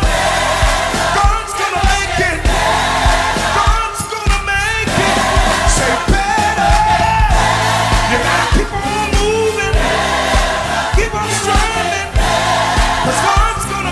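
Live gospel music: a male lead singer and a choir singing together over a band, with a steady drumbeat underneath.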